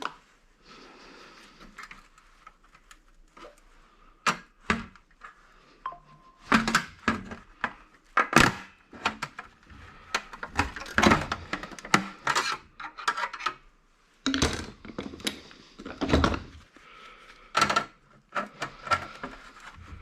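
Metal scrap parts and hand tools clinking and knocking irregularly while a part is being taken apart by hand, with the loudest clatters around the middle and about three-quarters of the way through.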